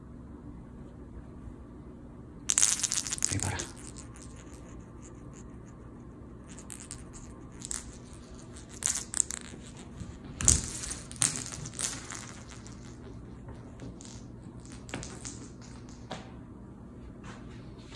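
A cat playing: scattered rustling and scratching, with a few sharp clicks, from its paws and claws on a woven rug and a chair cushion. The loudest burst comes about three seconds in and a cluster follows around ten to twelve seconds, over a steady low hum.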